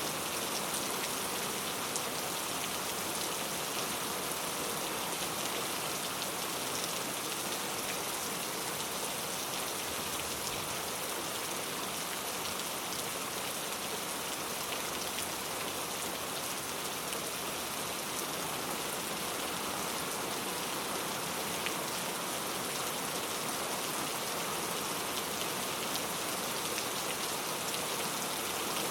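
Steady rain without thunder, an even hiss of falling rain with fine scattered drop ticks.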